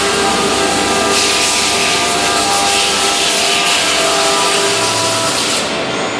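Mazak Nexus 510C vertical machining center running: a loud, steady hiss with several steady tones. The highest part of the hiss cuts off about five and a half seconds in, leaving the tones and a low hum.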